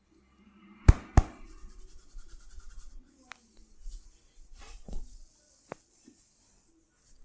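Barber's hands working on the head: two sharp cracks or slaps about a second in, a third of a second apart, then rubbing and fine crackling with a few lighter clicks.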